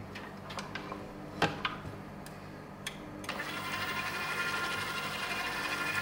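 A few light clicks, then about three seconds in a KitchenAid Artisan stand mixer starts up and runs steadily, its flat beater turning through thick yeast batter to fold in raisins and apple pieces.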